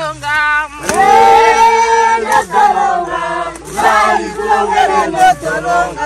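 Group of voices singing together in unison and parts, a work song sung while hoeing; a single voice is heard at the start, and the group joins in about a second in. A few sharp knocks sound under the singing.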